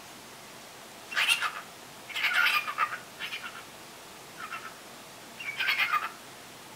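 Young cockatiel chattering in short warbling bursts, about five of them over a few seconds, two fainter than the rest.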